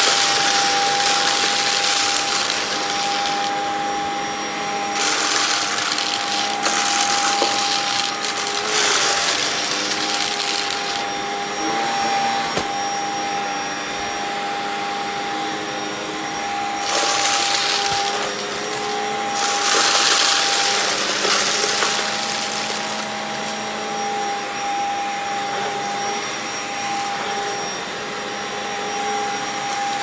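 Vacuum cleaner running with a steady high whine as its floor head is pushed over carpet, with several stretches of louder crunchy, hissing rattle as it sucks up glitter and crumbly debris.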